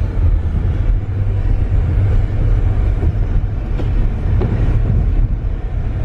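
Steady low rumble of a car's engine and tyres heard from inside the cabin while driving slowly on a snow-covered road.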